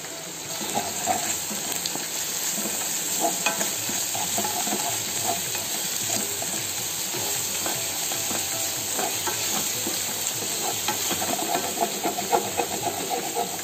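Chopped onions frying in hot oil in a stainless steel pot, sizzling steadily while a slotted spatula stirs and scrapes through them as ginger-garlic paste is mixed in.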